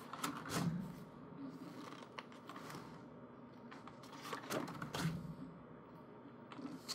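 Faint rustling and light clicks of calendar paper pages being handled and flipped, in two short spells: at the start and again about four to five seconds in.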